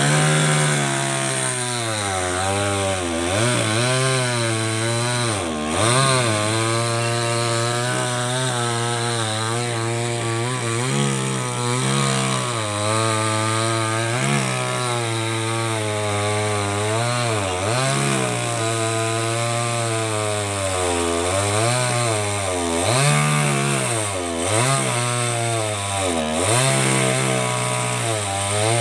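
Small corded electric chainsaw cutting wood. The motor runs continuously, and its pitch dips and recovers again and again as the chain bogs down in the cut.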